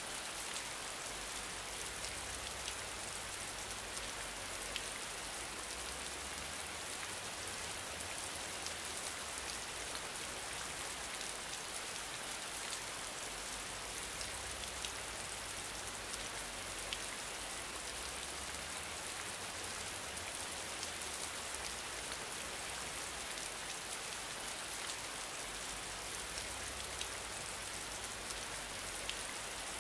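Steady rain: an even hiss with a fine patter of many small drops.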